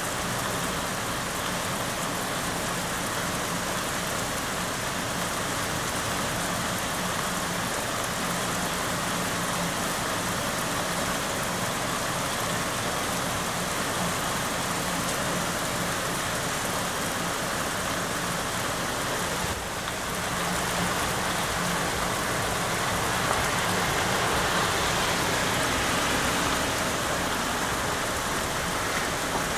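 Heavy rain falling steadily in a thunderstorm, an even hiss of rain on roofs and trees that grows a little louder after a brief dip about two-thirds of the way through.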